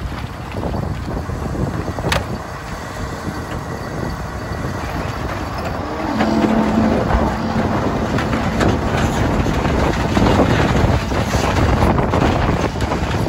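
Autocar Loadmaster rear-loader garbage truck's diesel engine running at the curb, stepping up in loudness about six seconds in as the hydraulic cart tippers lift and dump carts into the hopper. There is a sharp knock about two seconds in.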